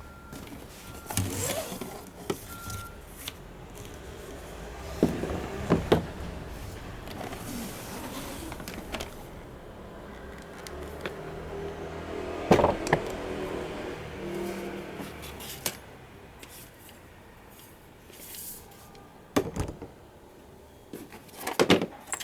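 Irregular knocks, clatter and rattling of plastic parts as a small bagless vacuum cleaner is handled and packed into a shopping trolley.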